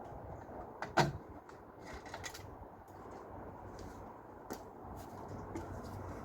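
A few scattered knocks and clicks from parts and tools being handled while a dishwasher is taken apart, the loudest about a second in.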